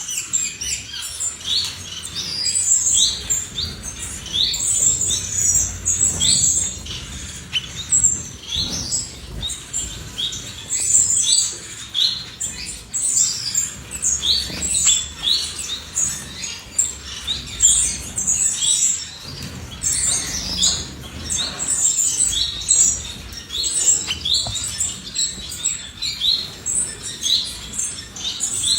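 Cordon-bleu finches chirping: a steady stream of short, high, thin notes in quick succession.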